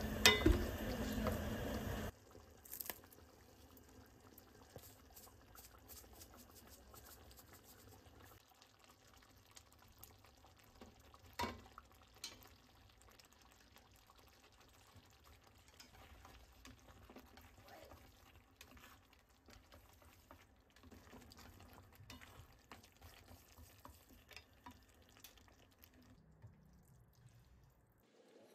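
Tomato sauce being stirred in a stainless steel pan and spaghetti tossed into it: a louder wet stirring for the first two seconds, then quiet, faint clicks of utensils against the pan, with one sharper knock about eleven seconds in.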